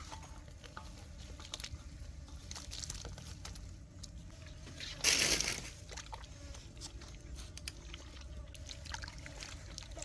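Liquid sloshing in a cooking pot, with scattered light clicks and knocks. There is a short, louder rush of noise about halfway through.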